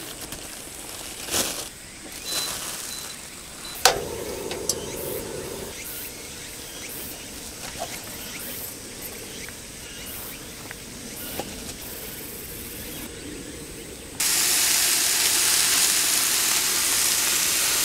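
Faint handling of plastic wrap and a knife at a cutting board, with a sharp click about four seconds in. Then, suddenly, about fourteen seconds in, a loud steady sizzle starts: pork-belly rolls with shiso and pickled plum are frying on a hot black griddle plate.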